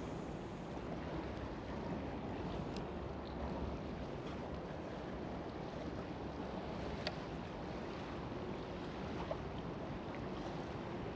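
Steady outdoor ambience of wind and river water, with a few faint clicks.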